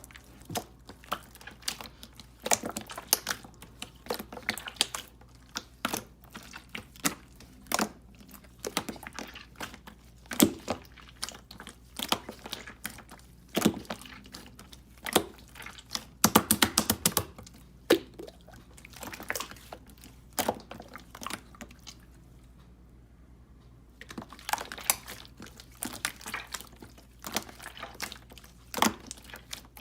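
Irregular clicks and taps in a small room, with a quick run of them about sixteen seconds in and a short lull about two seconds before the end of the first three quarters.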